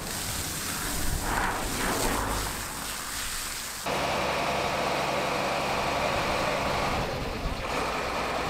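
Engine running steadily under a rushing hiss, at a brush fire being hosed down by firefighters. About four seconds in, the sound jumps to a louder, steadier engine hum with a strong hiss.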